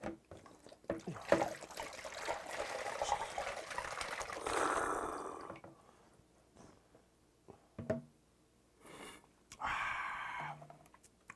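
Makgeolli poured from a plastic bottle into a cup, a continuous liquid rush lasting about four seconds.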